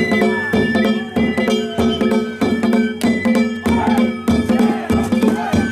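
Danjiri festival percussion: a taiko drum and hand-struck gongs beaten in a steady rhythm, about two strokes a second, with the gongs' metallic ringing carrying between beats.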